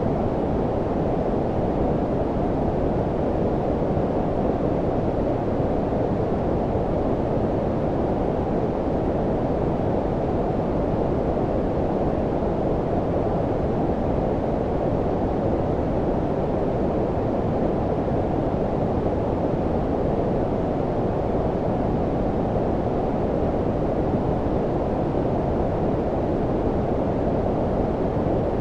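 Steady low-pitched synthetic noise, deep and muffled, of the brown-noise kind used for sleep, unchanging throughout.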